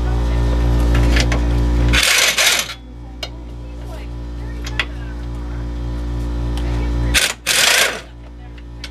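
A steady machine hum that slowly grows louder, cut off twice by a loud hiss lasting under a second, about two seconds in and again near the end.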